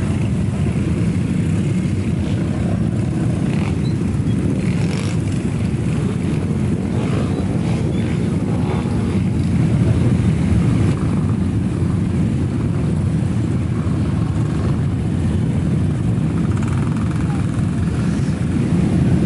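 A convoy of many motorcycles riding slowly past, their engines running together in a low, steady drone.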